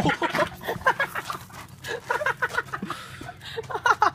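Teenagers laughing hard in quick, high-pitched, repeated bursts.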